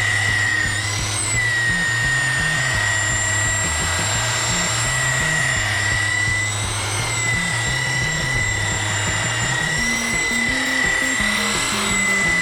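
Drillmaster 7-inch variable-speed rotary polisher running steadily with a high whine as it buffs boat gelcoat, over background music with a bass line.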